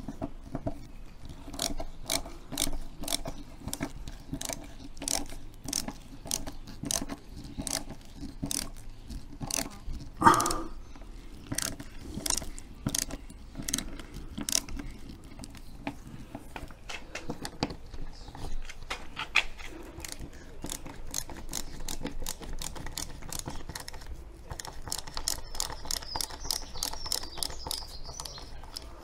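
Screwdriver undoing the screws of a motorhome door retaining catch: a run of sharp clicks, about two a second, getting faster near the end, with one louder clack about ten seconds in.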